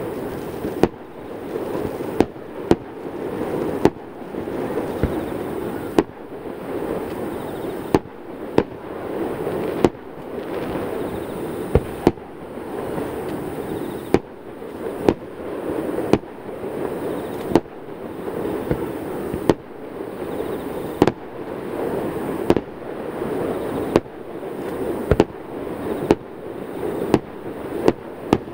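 Aerial firework shells bursting: sharp bangs about once a second, sometimes two in quick succession, over a continuous wash of rumble between them.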